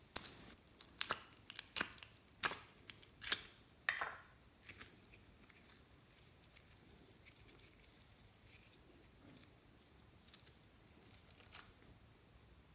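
Soft modelling clay being squeezed, stretched and torn apart by hand: a quick run of sharp, sticky snaps and crackles for about four seconds, then only a few faint ticks.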